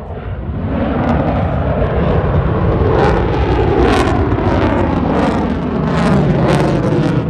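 Lockheed Martin F-35A Lightning II's F135 afterburning turbofan: loud jet noise that swells over about the first second, then stays loud and rough with repeated sharp crackles as the fighter flies its demo.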